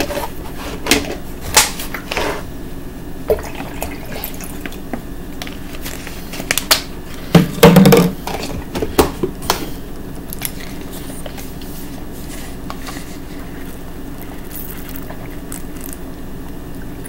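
A plastic water pitcher with a straw lid being handled on a table, with water moving inside. There are clicks and knocks in the first couple of seconds and again from about seven to ten seconds in; the loudest is a dull thump about eight seconds in. After that it is steady and quiet.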